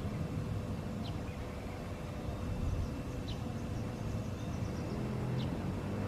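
Steady low outdoor rumble, like distant traffic, with three faint short falling high chirps about two seconds apart and a faint quick high ticking series midway.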